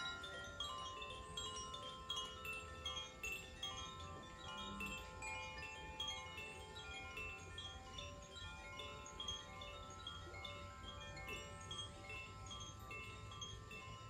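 Two Koshi chimes swayed gently by hand, their clappers striking the tuned metal rods inside the bamboo tubes. The result is a continuous shimmer of overlapping bell-like tinkles that ring and fade.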